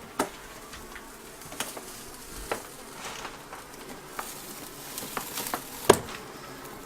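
Hands and tools working at a wall panel, giving scattered sharp knocks and clicks over a steady hiss. The loudest knock comes about six seconds in.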